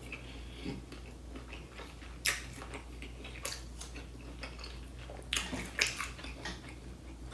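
Close-miked eating of king crab legs: quiet chewing and lip smacking with several short, sharp wet clicks, a few of them bunched together near the end.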